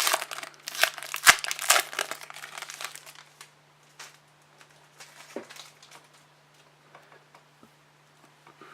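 A trading card pack's wrapper being torn open and crinkled, dense and loud for about the first three seconds, then thinning to scattered quieter ticks and rustles as the cards are handled.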